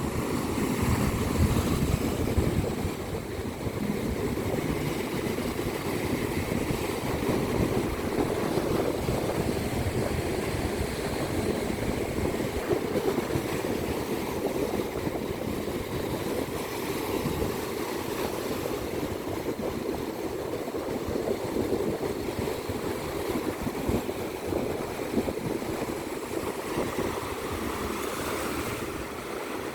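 Ocean waves washing steadily onto a beach, a continuous surf noise that swells and eases slightly.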